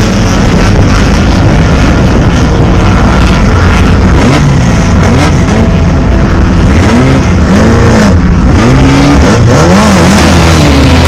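Drag race car engine running very loud, its pitch swinging up and down several times in quick succession in the middle as it is revved.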